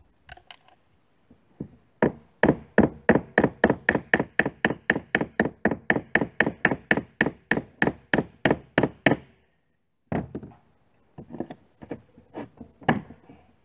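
A hammer driving nails into the wooden side of an old wooden rowboat: a fast, even run of blows, about five a second, for some seven seconds. After a short pause come a few scattered knocks.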